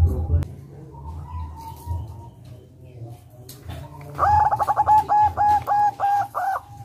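Local zebra dove (perkutut) cooing: a fast run of about eight short, ringing arched notes that starts about four seconds in and stops just before the end.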